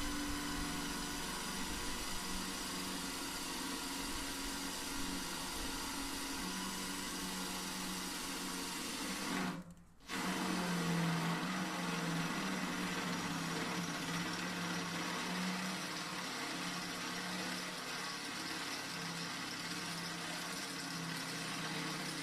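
Electric drill running under load, boring a hole through the steel of a tractor loader bucket with a pilot-tipped bit that cuts a 1/4" pilot hole first. It cuts out briefly about ten seconds in, then runs on steadily.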